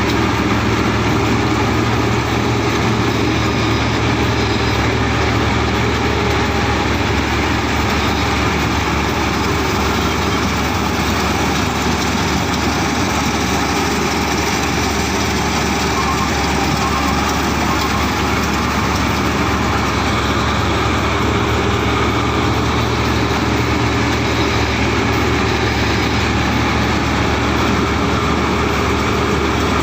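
Combine harvester running steadily at an even, loud level, its engine sound unbroken throughout.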